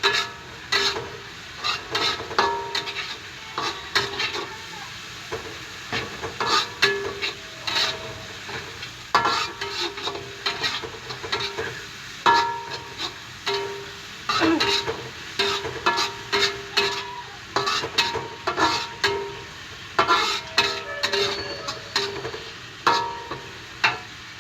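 A metal spatula repeatedly scraping and knocking against a pan while dried anchovies are sautéed in oil, with a steady sizzle underneath. The strokes come about once or twice a second, some leaving a brief metallic ring.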